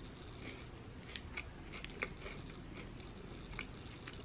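Close-up chewing of a bite of a milk chocolate bar coated in crispy rice: faint, scattered little crunches and mouth clicks.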